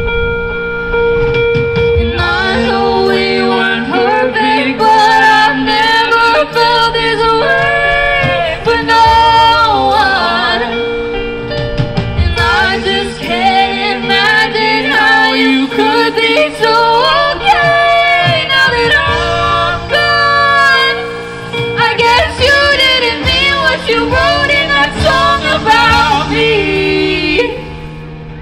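Live band music: a female lead vocalist singing a melody over keyboard, electric guitars and drums. Held chords come first, the voice enters about two seconds in, and the music drops away near the end.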